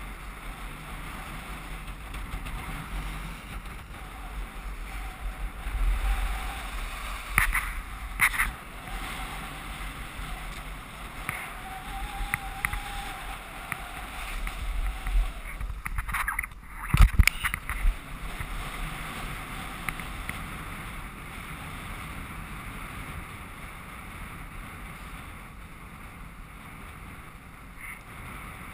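Skis sliding and carving over packed snow, a steady rushing hiss with wind buffeting the microphone. A few sharp knocks come through about 7 to 8 seconds in and again around 17 seconds.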